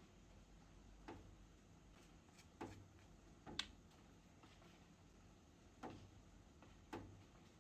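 Near silence with about five faint, irregularly spaced light clicks or taps.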